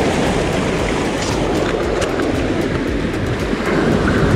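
Surf washing and breaking over shoreline rocks: a loud, steady rushing noise.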